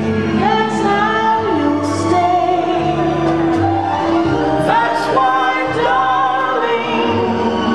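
A song with a singer holding long, wavering notes over a bass line that steps to a new note about every second.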